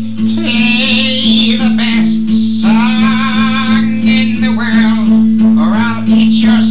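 Acoustic guitar strummed under a man singing loudly, his voice wavering and sliding in pitch.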